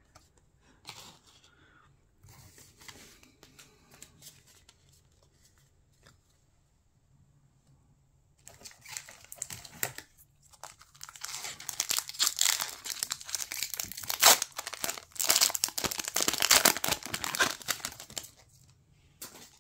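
Foil wrapper of a Pokémon TCG Brilliant Stars booster pack being torn open and crinkled: a long stretch of crackling and ripping in the second half. Before it, a few soft taps of cards being handled.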